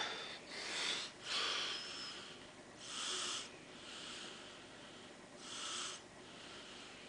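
A person breathing close to the microphone: four soft breaths of about half a second each, with pauses between them.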